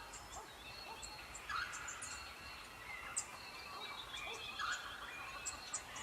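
Wild birds calling in the background: scattered faint chirps and high whistles, with a couple of louder short calls about a second and a half and nearly five seconds in.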